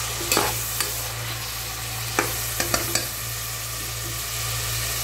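Sliced onions and green onion sizzling in oil in an aluminium pot while a spoon stirs them, knocking and scraping against the pot a few times in the first three seconds.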